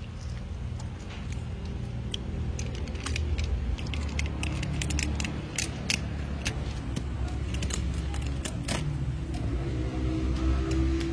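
Knife and fingers working a raw eel on a wooden board, making scattered small wet clicks and ticks over a steady low rumble.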